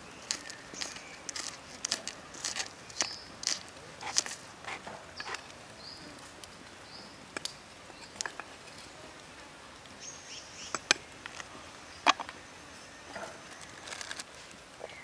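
Kitchen knife slicing garlic and green onion on a wooden board: quick, irregular sharp knocks, thinning out after about five seconds. Brief high chirps in the background.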